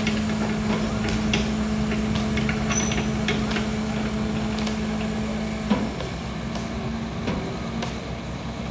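Heavy diesel engine of a truck-mounted crane running steadily at a constant speed while it holds a lifted load, with scattered light clicks and knocks and one brief sharp sound a little over halfway through.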